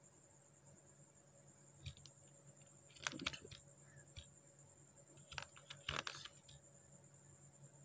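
Faint computer keyboard keystrokes as shortcut keys are pressed: a handful of scattered clicks, the loudest around three and six seconds in. A faint steady high whine runs beneath.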